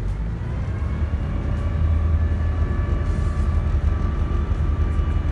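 Boat engine running above idle, a steady low rumble with a faint whine whose pitch rises over the first couple of seconds as the revs come up.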